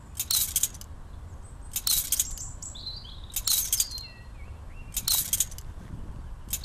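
Trampoline springs jangling metallically with each bounce, a burst about every second and a half. Birds chirp between the bounces.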